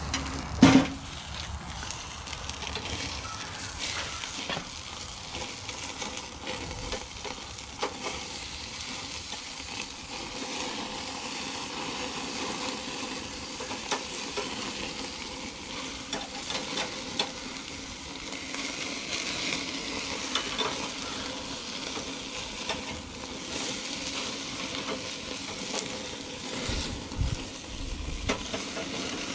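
Burger patties sizzling and crackling over a charcoal grill with flames flaring up around them, while a metal spatula scrapes and clinks on the grate. A single sharp metal clank comes about a second in.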